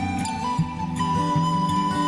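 Background music: a long held, flute-like melody note over repeated plucked low notes.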